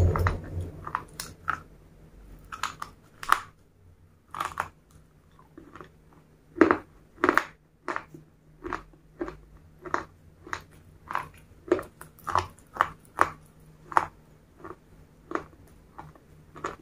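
Close-miked chewing of a chocolate-dipped wafer stick: irregular crisp crunches, about one or two a second.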